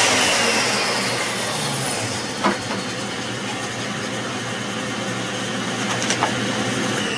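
Table saw winding down after a crosscut: a whine that slowly falls in pitch over a steady machine hum. There is a sharp knock about two and a half seconds in and two light clicks near the six-second mark.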